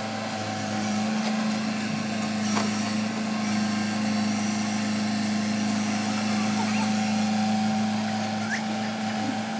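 JCB tracked excavator's diesel engine running steadily at a constant speed, an even drone.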